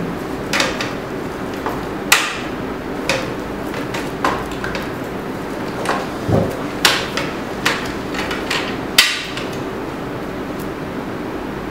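Plastic clicks and knocks as the two rolls of a dye-sublimation ribbon are pushed onto the plastic ribbon holder of a DNP DS620 photo printer. There are about a dozen separate sharp clicks, the loudest about two seconds in and about nine seconds in, over a steady background hum.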